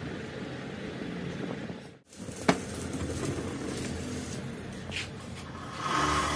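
Steady workshop noise with a sharp metal clink about two and a half seconds in and a lighter knock near five seconds, from steel steering parts being handled. Near the end a motor-driven wire wheel starts running louder with a steady hum.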